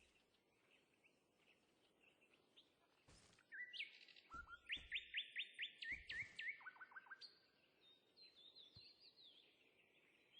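Bird singing: a fast run of repeated high chirps in the middle, with fainter chirping before and after, and a few sharp clicks.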